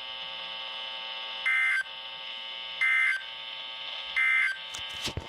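Emergency Alert System end-of-message data tones from a weather radio speaker: three short, loud digital screeching bursts about 1.3 s apart, marking the end of the tornado warning broadcast. A few sharp clicks follow near the end, over a steady electronic hum.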